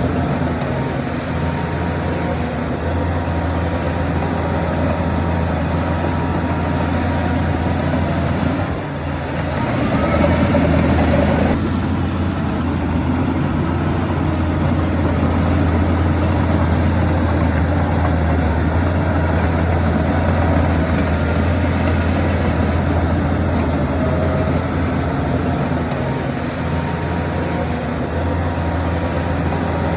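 Heavy diesel earthmoving machinery running steadily with a low hum. The sound dips briefly about nine seconds in, then grows louder for a few seconds.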